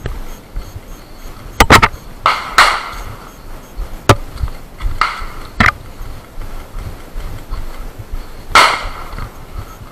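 Irregular sharp knocks and short crunching scrapes from a walking player's carried rifle, gear and boots on a gravel trail: a double knock about two seconds in, single knocks near four and five and a half seconds, and a longer scrape near the end.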